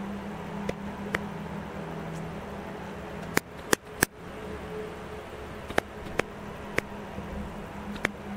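A camera's shutter-speed and ISO dial wheels clicking detent by detent as they are turned, about nine sharp separate clicks at uneven intervals, the loudest cluster a little past three to four seconds in, over a steady low hum.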